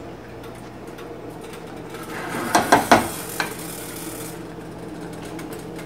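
A wooden spoon stirring beans in tomato sauce in a stainless steel pot, scraping for about two seconds with a few sharp knocks against the pot, starting about two seconds in. A steady low hum runs underneath.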